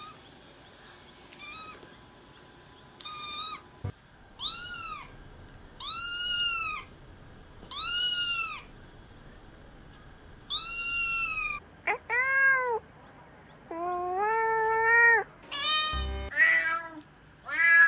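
A cat meowing over and over, about a dozen separate meows with pauses between: first a run of high-pitched mews that rise and fall in pitch, then from about twelve seconds in several lower, longer meows, the last few coming quickly one after another.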